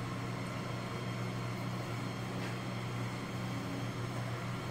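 Steady low hum with an even hiss: room background noise, likely a fan or air conditioner, with no clear stirring sounds.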